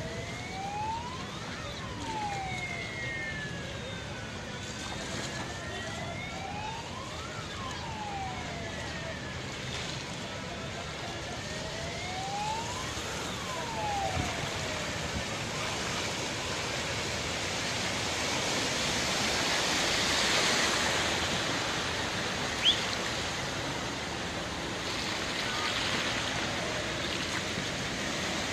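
A siren wailing in slow rising and falling sweeps, about six seconds to a cycle, fading out about halfway through. After that a steady rushing noise of floodwater swells, with one short high chirp near the end.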